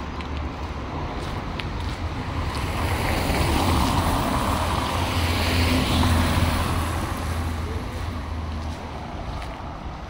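A parked box delivery truck's engine running with a low steady hum, growing louder about halfway through as it is passed up close, then fading again.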